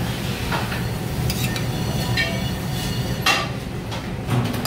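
Metal kitchen tongs clinking several times against a stainless steel sauté pan and a plate while food is lifted out and plated, the sharpest clink a little past three seconds in, over a steady low hum.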